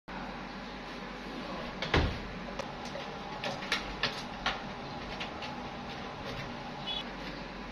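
A door thumps shut about two seconds in, followed by scattered light clicks and knocks as gear is handled, over a quiet background.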